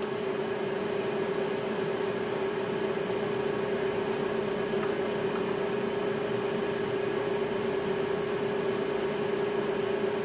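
Steady machine drone: a constant hum-like tone over an even hiss, with a faint high whistle, unchanging throughout.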